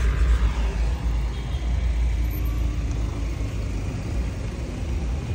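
Road traffic noise: motor vehicles running past with a steady low rumble.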